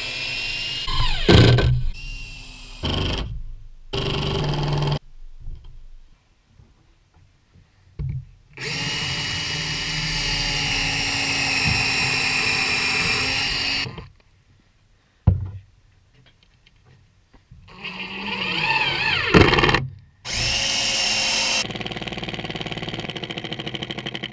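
Cordless drill/driver driving screws into lumber in several bursts, with one long run of about five seconds in the middle, and its motor pitch rising in the run near the end. The last run goes weaker and uneven as the drill's battery gives out.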